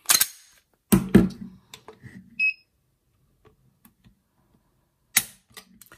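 Sharp mechanical clicks of a Glock pistol being reset and dry-fired as its trigger is pulled with a digital trigger pull gauge, with a short electronic beep from the gauge about two and a half seconds in. The loudest clicks come at the start, about a second in and just after five seconds.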